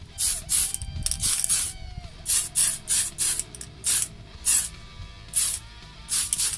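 Aerosol spray paint can hissing in a quick series of short bursts, about two a second, as paint is dusted onto a car body shell.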